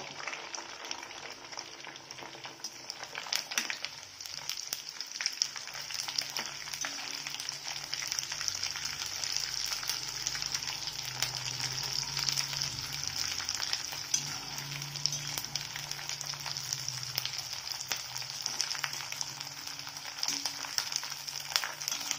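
Nylon sago pearls (sabudana) deep-frying in hot oil: a steady sizzle with fine crackling as the pearls puff up, growing a little louder after about four seconds.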